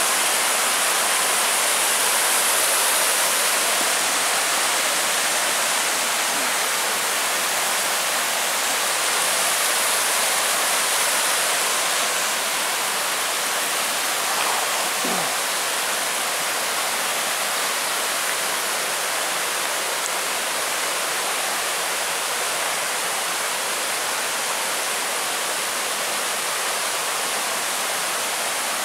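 A mountain stream rushing and tumbling over small cascades and rocks, a steady, even rush of water.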